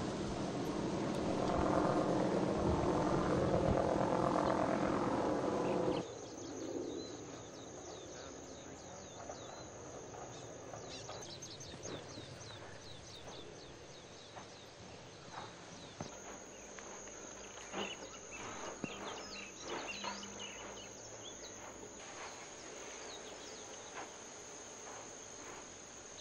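A loud, steady roar with a low rumble for about six seconds, then a sudden change to crickets trilling steadily at a high pitch, with scattered faint clicks and crackles.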